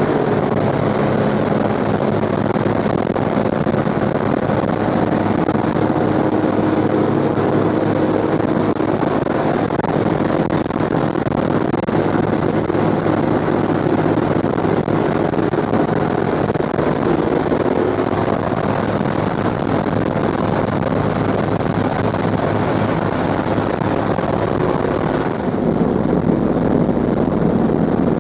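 The B-17 bomber's four Wright R-1820 Cyclone radial engines and propellers droning steadily in flight, heard from inside the fuselage. Near the end the drone turns deeper.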